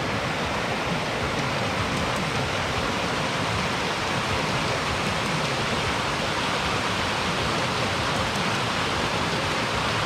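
Steady rush of a small mountain stream cascading over boulders.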